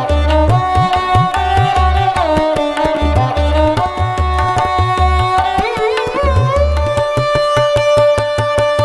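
Background music: a melodic line with sliding pitch bends over a steady hand-drum beat that grows quicker and denser in the second half.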